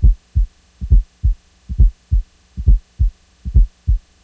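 Heartbeat with an added fourth heart sound (S4): in each beat a soft low thud comes just before the loud first heart sound, followed by the second sound, giving a three-part 'Tennessee' gallop rhythm. About five beats are heard, a little under 70 a minute. This atrial gallop is the sign of stiff, non-compliant ventricles, as in diastolic dysfunction.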